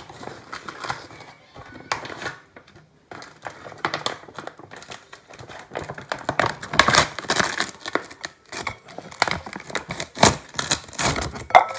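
Irregular crinkling, clicking and scraping from handling raw fish fillets on a plate, with a few louder crinkly bursts partway through.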